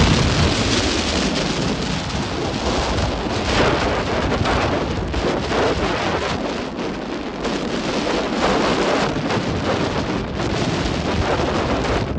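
Rough sea surf, a loud and continuous rush of breaking, churning waves, with wind buffeting the microphone.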